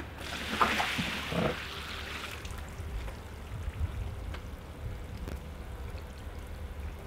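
About 50 litres of water tipped out of a rubber builder's tub onto a resin-bound patio. It gushes and splashes, loudest in the first second, then dies away after about two and a half seconds as the water soaks into the permeable surface.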